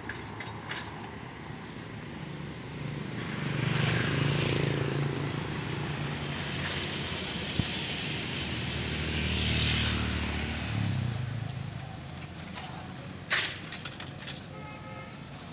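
Road traffic: two motor vehicles pass, each engine swelling and fading, about four and about ten seconds in. A short sharp knock near the end.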